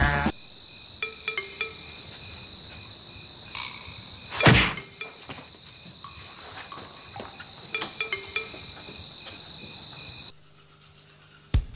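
Crickets chirping steadily in a pulsing pattern, with one loud thump about four and a half seconds in. The chirping cuts off abruptly near the end.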